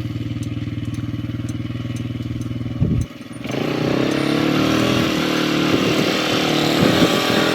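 ATV (quad) engine running at a steady idle just after being restarted with a new fuel pump assembly. About three seconds in it briefly jumps and drops out, then the quad's engine runs at varying speed, pitch rising and falling, with wind rushing over it.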